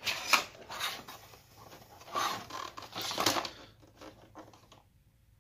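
Hands handling the plastic housing of a Chevrolet/GMC instrument cluster while pushing in the cover's retaining tabs: plastic scraping and rattling in a few short bursts, dying down near the end.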